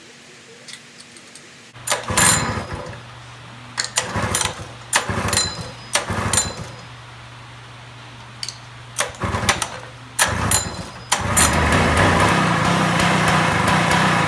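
Robin EC12 small engine being cranked over and over, a string of short bursts of turning and coughing, until it catches about eleven seconds in and runs steadily.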